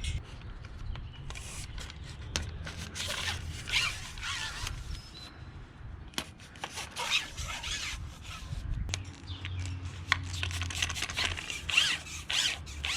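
Pole clamps being worked onto a carbon-fibre water-fed pole section: repeated scraping and rubbing with a few sharp clicks over a low steady hum.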